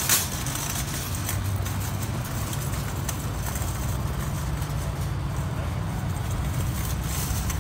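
Wire shopping cart rolling across parking-lot asphalt: a steady low rattle from its wheels and basket.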